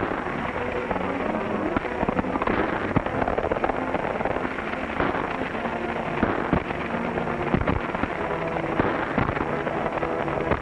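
Horses' hooves pounding and a stagecoach rattling at a gallop, with sharp cracks throughout.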